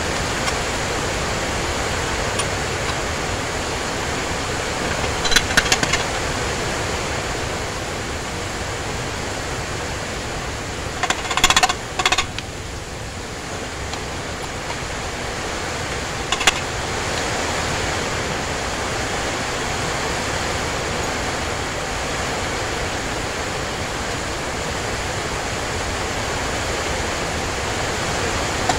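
A steady, even hiss throughout, with short metallic clinks of hand tools and gearbox parts being handled on an outboard motor's lower unit: a few about five seconds in, a louder cluster near the middle, and one more a few seconds later.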